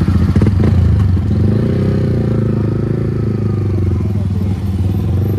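Motorcycle engines running steadily at idle, the nearest a Yamaha R15 V3's single-cylinder engine.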